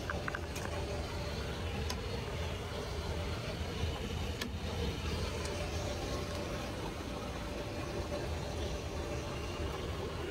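Steady low rumble inside a Boeing 737 cockpit with the engines running, with a few light clicks.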